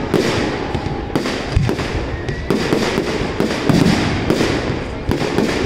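Aerial firework shells bursting in a rapid barrage: bang after bang, several a second, with no let-up.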